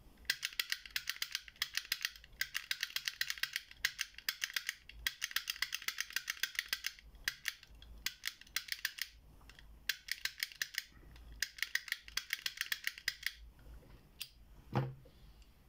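Brockhage manual snap pick gun being triggered over and over in the keyway of an IFAM padlock: fast runs of sharp metallic snaps, about five or six a second, with short pauses between runs. Near the end come a few single clicks and one duller knock.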